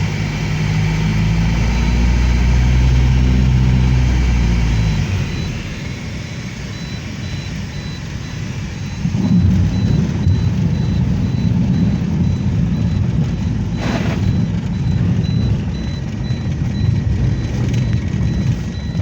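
An engine running steadily with a low, even hum that gives way to a louder, rougher rumble about nine seconds in.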